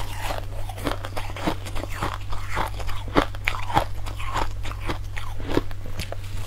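Crunchy bites and chewing of powdery, snow-like ice, many irregular crackling crunches in quick succession. A low steady hum sits underneath.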